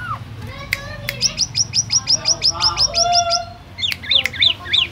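White-rumped shama singing: a fast run of about twenty repeated high notes, roughly nine a second, then a few looping whistled phrases near the end.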